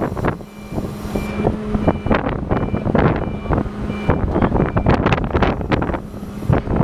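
Vehicle reversing alarm sounding short beeps under a second apart over a steady engine hum, with wind buffeting the microphone.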